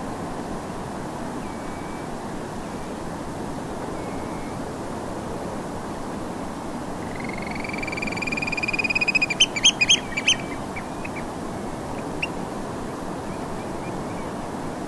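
Eurasian oystercatchers piping: about seven seconds in a fast trill at one pitch swells over a couple of seconds and breaks into several loud, high separate notes, with a few fainter calls before and after. Underneath, a steady hiss of distant gentle surf.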